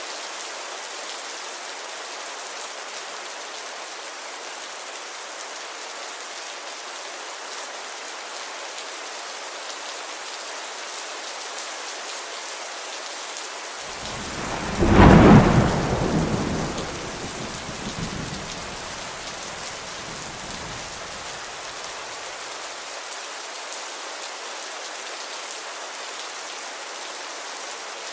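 Steady rainfall hiss with a single loud thunderclap about halfway through that rolls away in fading rumbles over several seconds.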